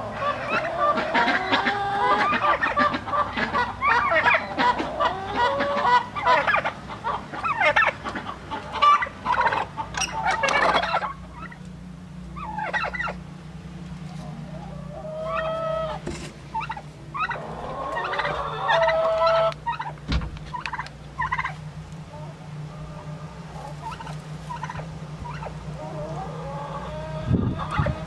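Domestic turkeys and chickens calling in a dense, overlapping chorus for about the first ten seconds. Then a steady low hum takes over, with scattered hen calls and clucks that thin out toward the end.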